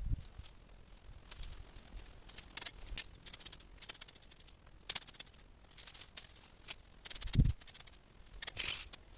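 Cut hedge twigs and dry leaves rustling and crackling in short bursts about once a second, as the trimmings are handled and raked, with a dull thud about seven seconds in.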